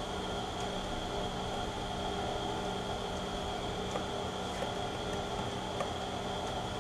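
Union BFT 130/6 CNC horizontal boring mill running with a steady hum and whine, with a few faint ticks.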